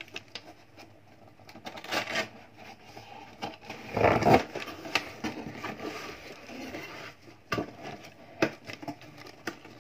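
Large cardboard shipping box being handled and lifted: cardboard scraping and rubbing, loudest for about half a second some four seconds in, with a few sharp knocks later on.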